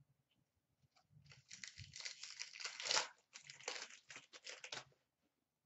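Wrapper of an Upper Deck SP Authentic hockey card pack being torn open and crinkled by hand: a crackling rustle starting about a second in and lasting nearly four seconds, with a short break in the middle.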